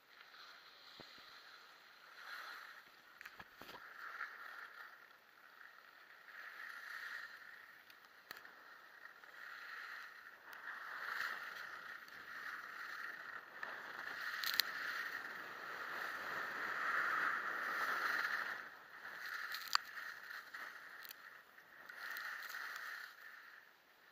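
Skis scraping and swishing over snow in a series of turns, the noise swelling and fading every second or two, with a few sharp clicks.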